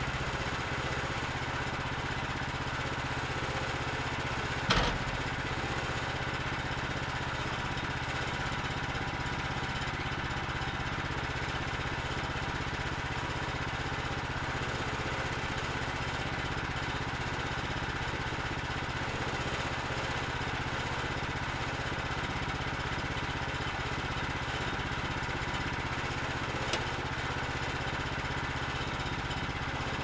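Small gas engine of a Woodland Mills portable bandsaw sawmill running steadily, not cutting. A sharp knock stands out about five seconds in, and a fainter click comes near the end.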